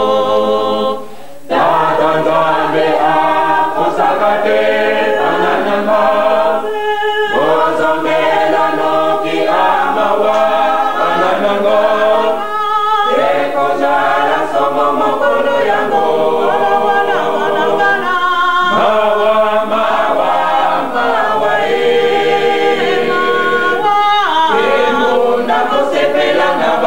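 Choir singing unaccompanied, long held phrases with short breaks between them, heard through an old cassette recording with a dull top end.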